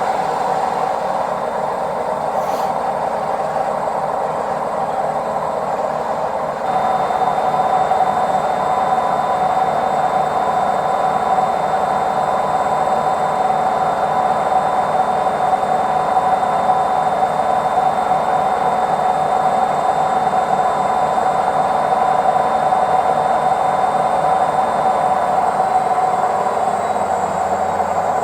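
Washing machine drum turning in the spin cycle with a steady high screech from bad drum bearings. It grows louder about seven seconds in.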